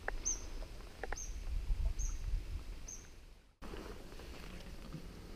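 A bird repeating a short high call about once a second over a low rumbling background, with two light clicks in the first second. About three and a half seconds in the sound drops out and a different outdoor background follows.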